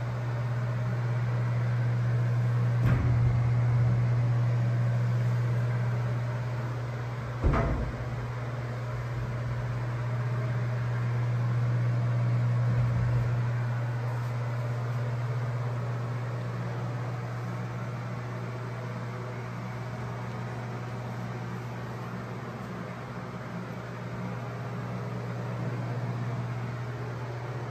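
A steady low mechanical hum in a small room, broken by two sharp knocks about three and seven and a half seconds in, the second the louder, and a soft low thud a few seconds later.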